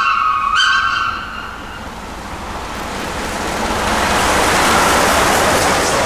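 Whistle of the steam locomotive 241P17 sounding two short blasts, the second ending about a second in, then the noise of the locomotive and its coaches passing close at speed, growing louder as the train comes by.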